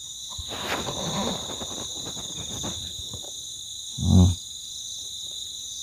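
Night insects, crickets, chirring steadily as a high background. A spell of rustling and handling noise sounds in the first few seconds.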